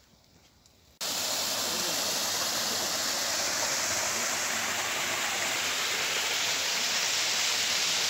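Near quiet for about a second, then the steady rush of a shallow stream flowing over rocks, starting abruptly.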